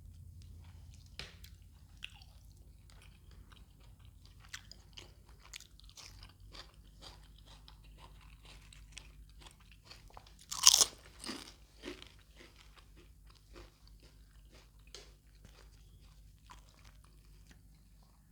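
Close-miked eating: a string of short wet chewing clicks, with one loud crunchy bite about ten and a half seconds in and a few smaller crunches after it.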